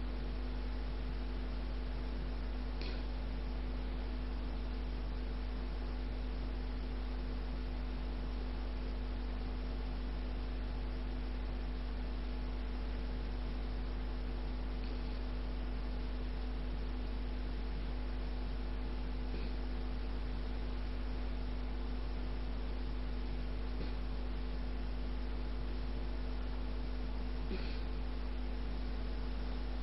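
Steady electrical mains hum with a constant hiss and a couple of steady low tones, unchanging throughout, broken only by a few faint brief ticks.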